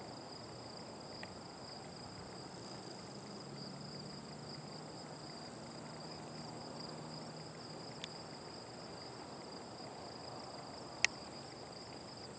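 Steady, high-pitched chorus of insects, with a faint low drone from about two to seven seconds in and a single sharp click near the end.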